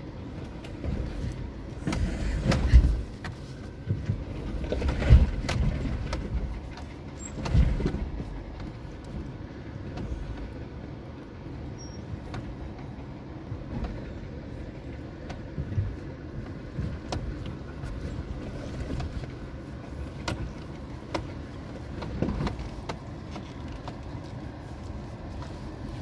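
Suzuki Jimny heard from inside the cabin as it crawls down a steep, rocky track: a steady low engine rumble with the tyres grinding over loose rock. Three heavy thumps and knocks in the first eight seconds as the car drops over rocks, then lighter scattered knocks and clicks.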